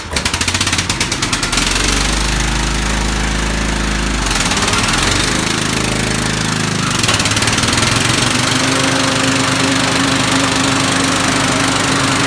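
Car engine catching just after being started, with rapid uneven firing for the first second or so, then settling into a steady idle.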